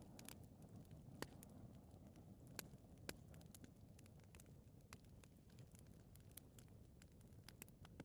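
Faint fireplace fire crackling: a dozen or so sharp pops and snaps at irregular intervals over a low, steady rumble of flame.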